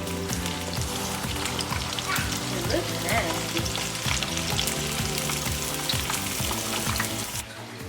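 Breaded chicken frying in hot oil: a steady sizzle full of small crackles, which cuts off shortly before the end. Background music with a steady beat plays underneath.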